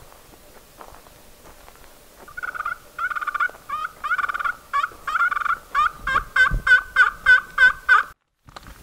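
Hand-held pot-and-striker friction turkey call being worked. A run of turkey yelps starts about two seconds in, comes faster and louder toward the end, and cuts off abruptly.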